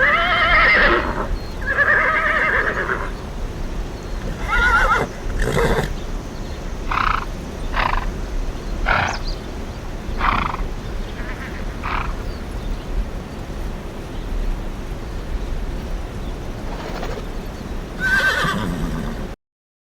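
Repeated animal calls with a wavering pitch: a few long cries in the first five seconds, then a run of shorter ones, and one more near the end before the sound cuts off abruptly.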